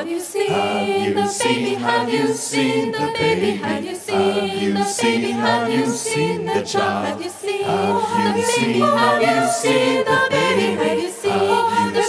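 Mixed men's and women's vocal ensemble singing a cappella, several voices in close harmony, amplified through handheld microphones.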